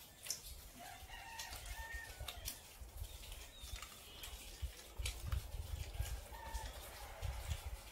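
A chicken calling faintly twice, a drawn-out call about a second in and a shorter one past six seconds, over scattered light clicks and taps.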